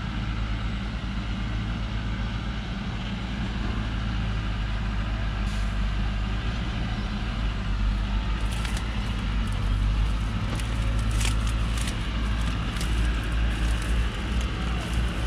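Diesel log truck engine running steadily with a low hum, getting a little louder in the second half, as a loaded truck works up a muddy slope. A few sharp clicks and knocks come through in the second half.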